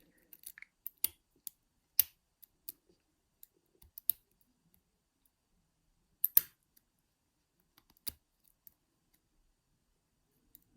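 Lock pick working the pins of an ERA euro cylinder lock under tension: irregular sharp metallic clicks as the pins are lifted and set, with a close pair of louder clicks about six seconds in.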